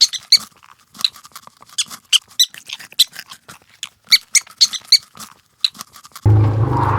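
Rapid, high-pitched squeaks or peeps from a small animal, coming in quick clusters. A little after six seconds it cuts abruptly to a loud, steady low hum with noise over it.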